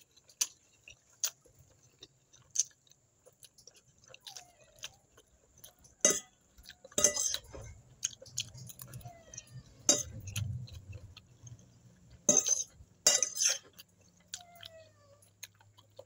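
Close-up eating of spaghetti: chewing and mouth noises, with a few louder slurps and small clicks of a fork against the plate. A cat meows faintly a few times, once near the end.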